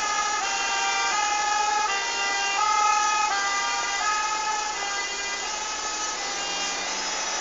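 Fire engine's two-tone siren, alternating between a high and a low note about every 0.7 seconds, a little fainter over the last few seconds.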